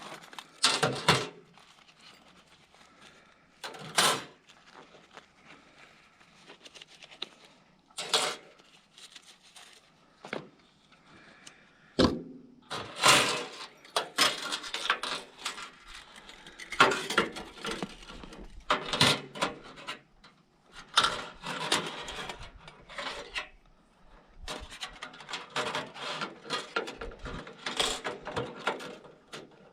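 Irregular knocks, scrapes and rattles of camp gear being handled: a few separate sharp knocks, then denser, busier handling noise.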